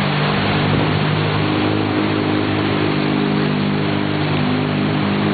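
Vehicle engine running steadily under a constant rush and splash of floodwater as a jeep wades through the flooded street.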